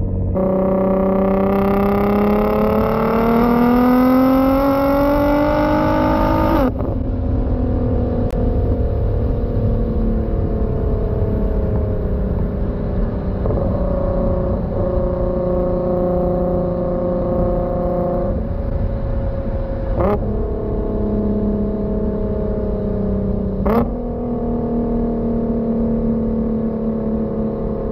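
Nissan GT-R R35's twin-turbo 3.8-litre V6 heard at the tailpipes through an HKS Legamax 85 mm exhaust while driving. The engine note climbs under acceleration for about six and a half seconds, then drops abruptly on an upshift, and settles into steady cruising with a few more gear changes, two of them marked by a short sharp crack.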